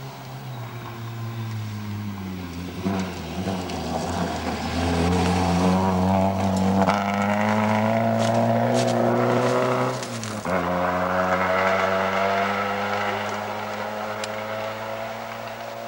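Rally car's engine under hard acceleration on a dirt forest stage, growing louder and rising in pitch as it approaches. About ten seconds in, the pitch drops sharply as it passes close by, then it pulls away and fades.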